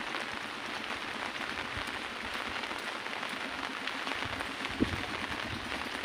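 Heavy rain falling in a steady, even hiss, with a single sharp knock a little after four and a half seconds in.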